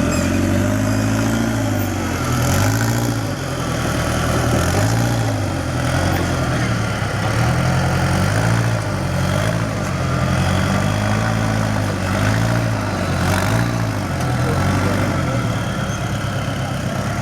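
Rock crawler's engine revving up and down in repeated throttle blips, its pitch rising and falling every second or two, as the vehicle works slowly over rocks.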